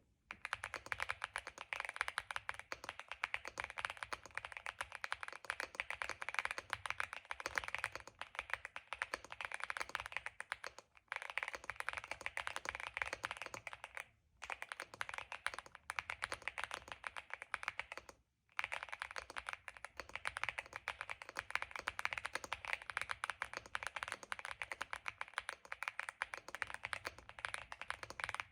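Fast, continuous typing on a Leobog Hi75 aluminium mechanical keyboard fitted with Nimbus V3 switches and MDA keycaps: a dense stream of keystrokes, with short breaks about 11, 14 and 18 seconds in.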